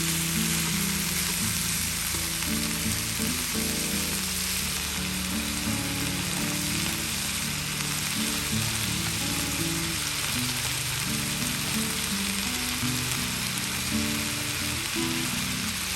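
Food sizzling steadily in a Teflon-coated frying pan, with background music playing low notes underneath.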